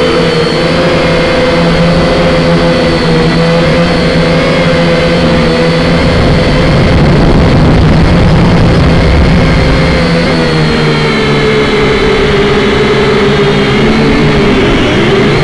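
Syma X5C toy quadcopter's four small brushed motors and propellers whining steadily in flight, heard close up through its own onboard camera. The pitch wavers as the throttle changes and dips a little near the end, with a rush of wind noise in the middle.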